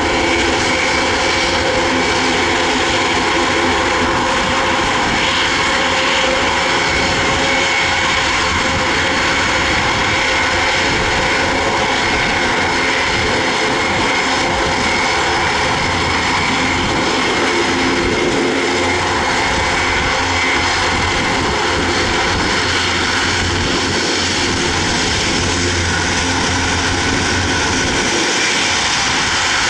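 Airbus A400M Atlas's four turboprop engines running at low power while the aircraft taxis and turns on the runway. The sound is a steady propeller drone with a steady high whine, and the level holds even throughout.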